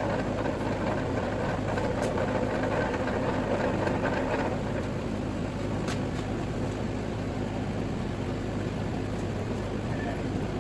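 Motor-driven wire-stripping machine running with a steady low hum. For the first four and a half seconds a rougher, grinding sound rides on top as material goes through the geared blades, then it runs on more evenly.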